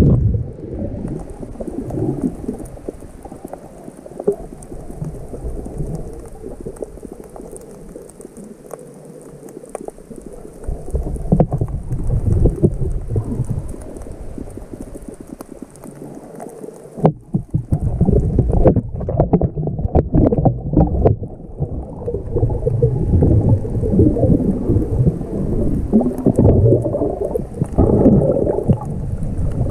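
Muffled underwater noise from a camera held below the surface: irregular sloshing and rumbling of water around it as it moves, with an abrupt change a little past halfway and a few faint clicks after it.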